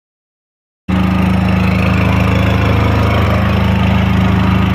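Generator engine running steadily with a low, even hum, heard from about a second in.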